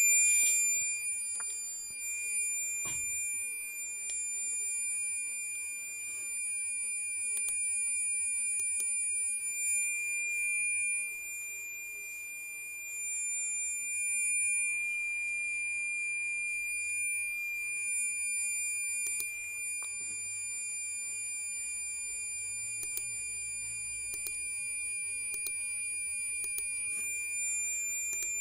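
Asus Transformer Book T100 giving off a continuous high-pitched whistle, one steady tone with a few faint clicks over it. The whistle is a known sound fault of this machine that persists through the November 2013 firmware update and is only cleared for a while by suspending and resuming it.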